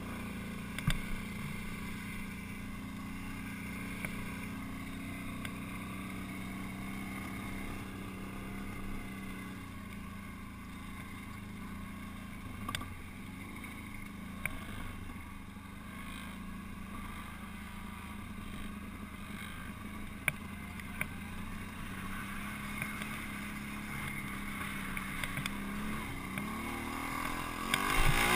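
ATV engine running at a steady, moderate pace, with occasional sharp clicks and knocks from the machine over rough ground. Near the end the engine revs up and gets louder as it pulls up a slope.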